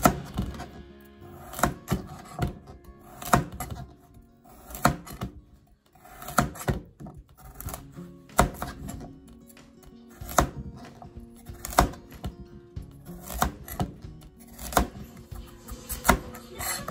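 A square-bladed kitchen knife chopping carrot and then potato on a plastic cutting board: single sharp knocks of the blade on the board, roughly one every second or so, over background music.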